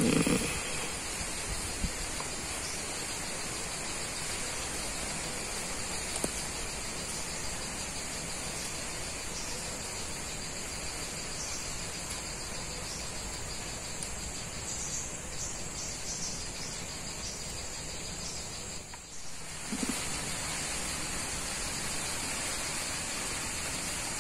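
Steady high-pitched chorus of insects over a soft background hiss, with a few faint knocks; the sound briefly drops away about nineteen seconds in.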